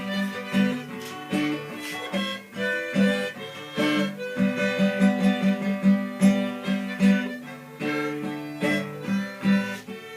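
Instrumental break of a forró song played on an electronic keyboard, plucked-string and fiddle-like voices over a steady beat.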